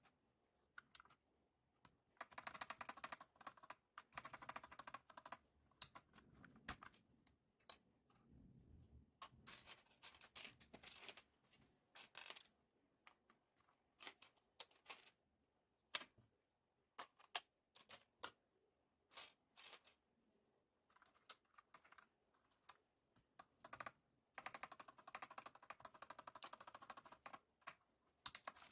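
Typing on a Redragon K596 mechanical keyboard with Akko CS Lavender Purple tactile switches and HyperX PBT pudding keycaps. There are fast runs of keystrokes about two seconds in and again near the end, with single key presses scattered between.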